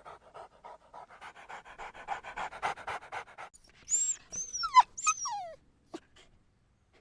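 An animal panting rapidly, about five breaths a second. About four seconds in come three high squeals that fall steeply in pitch.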